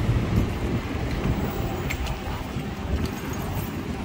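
Steady wind noise buffeting the microphone of a camera moving along a city street, with street traffic faint beneath it.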